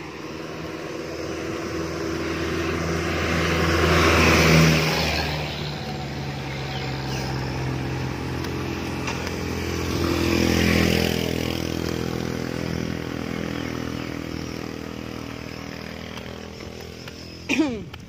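Motor vehicles passing close on a road, one after another: the engine noise swells and fades about four seconds in, then again about ten seconds in as a motorcycle with a sidecar goes by. A short, sharp sound comes near the end.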